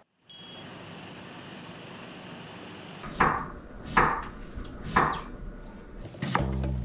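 Three knife strokes on a wooden cutting board, about a second apart, over a steady hiss. A short high chime sounds just after the start, and background music comes in near the end.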